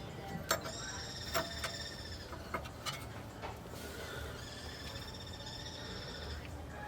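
A few sharp clicks and knocks, like hand tools handled against metal, scattered through the first three seconds, with a high warbling tone sounding twice in the background.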